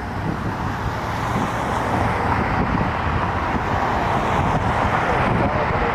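Jet airliner's engines as a steady, distant noise, slowly growing louder as it approaches.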